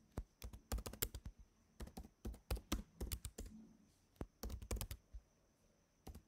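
Computer keyboard typing: quick runs of keystrokes in bursts, with short pauses between them, as commands are typed in.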